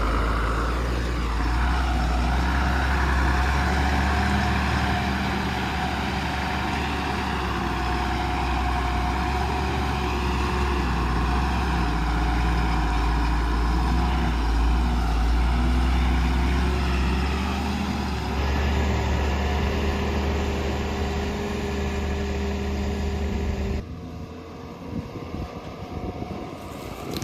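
Heavy diesel engine running steadily with a deep hum. The sound drops suddenly near the end to a quieter, uneven rumble.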